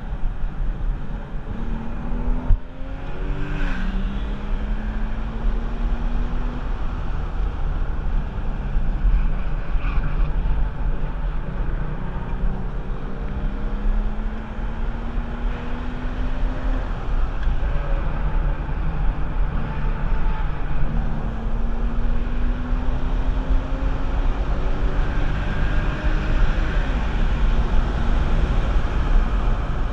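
Porsche 996 Carrera 4's 3.6-litre M96 flat-six engine pulling hard on track. Its pitch climbs in long rising pulls and falls back at each gear change, about three times, over a heavy low rumble of wind and road noise.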